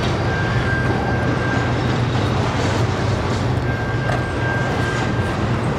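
Double-stack container freight cars rolling past at a grade crossing: a steady rumble of wheels on rail, with a thin high whine that comes and goes twice.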